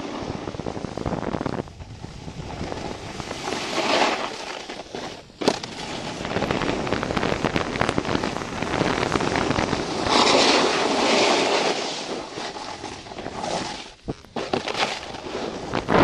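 Snowboard sliding and carving over packed snow, the edge scraping and crackling and swelling with each turn, with wind rushing over the microphone.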